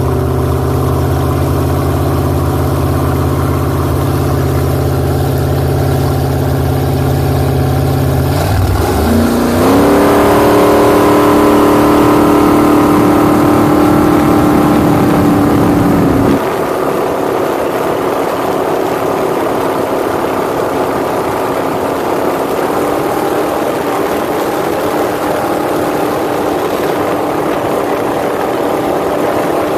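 Speedboat's supercharged engine running hard at speed. About nine seconds in, the engine note rises as it revs up and then holds higher. About sixteen seconds in, the deepest part of the sound drops out, leaving a steady engine note over a rushing haze.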